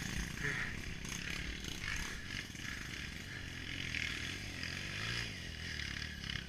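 Trail motorcycle engine running steadily, a single-cylinder dirt bike engine note.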